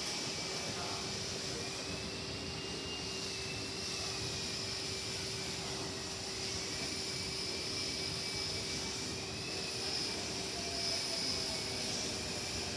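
Steady hum and hiss of an electric commuter train at a station platform, with a constant low tone and a faint whine that wavers slightly in pitch.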